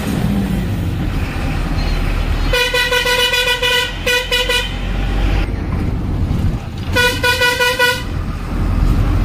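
Vehicle horn honking three times: a blast of about a second and a half, a short toot, then another blast of about a second. Underneath is the steady low rumble of a moving vehicle.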